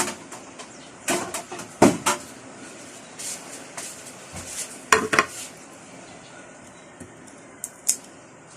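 Kitchen utensils and dishes knocking and clattering: a handful of separate sharp clicks and knocks at irregular intervals, the loudest about two seconds and five seconds in.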